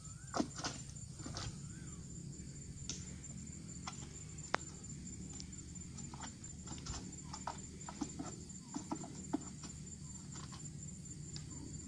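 Irregular sharp clicks and knocks over a steady low hum, from a long oil palm harvesting pole being worked up among the fronds. The sharpest knock comes about four and a half seconds in, and a run of clicks follows from about six to nine and a half seconds.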